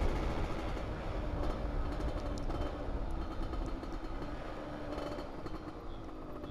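Yamaha F1ZR's small two-stroke single-cylinder engine running steadily under way, with road and wind noise rumbling on the microphone. The overall level eases off gradually as the bike slows.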